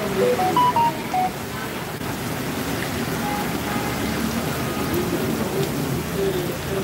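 Heavy rain pouring down onto a wet street, a steady dense hiss with no let-up.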